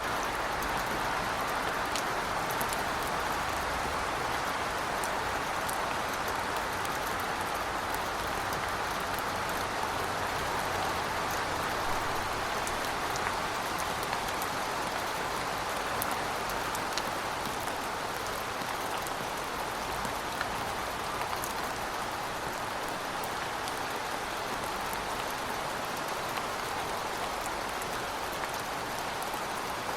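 Heavy rain falling steadily, a dense even hiss with scattered sharper drop ticks and a faint low rumble underneath.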